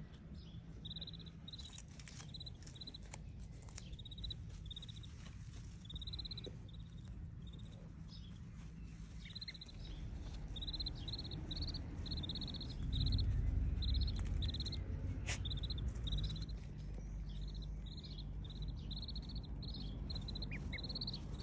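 Ducklings peeping: short, high cheeps repeated in quick runs, over a low rumble that grows louder a little past the middle.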